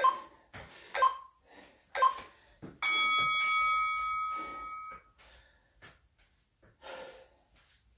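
Workout interval timer counting down: three short beeps about a second apart, then one long steady beep of about two seconds that marks the end of the exercise interval.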